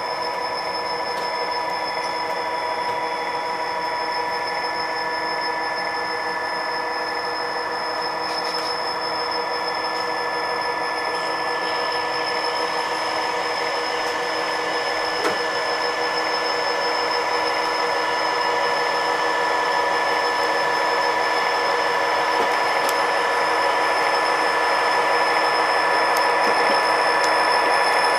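HO scale model train rolling along the track: a steady whir of wheels on rail with a constant motor hum, growing louder as the locomotive comes close near the end. One faint click midway.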